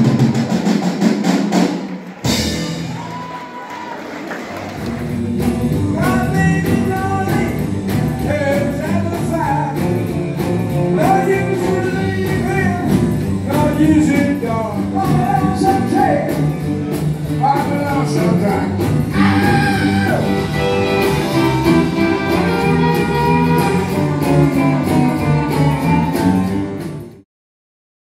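Live band playing 1950s-style rock and roll with a lead singer, heard in a large hall. The music breaks off about two seconds in, comes back quieter, builds up again, and cuts off abruptly near the end.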